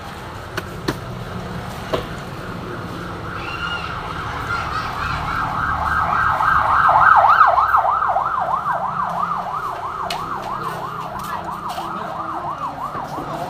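A siren wailing in a fast yelp, about three sweeps a second, growing louder to a peak about seven seconds in, then easing off a little.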